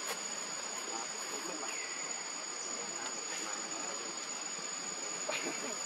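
Insects droning steadily in a high, even tone over a quiet outdoor background.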